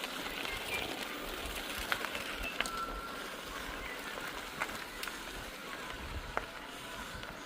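Mountain bike rolling along a trail: steady tyre and wind noise with scattered sharp clicks and rattles.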